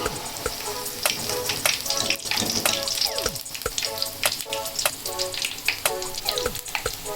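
Cauliflower sizzling as it fries in a hot pan, with sharp crackles over a steady hiss.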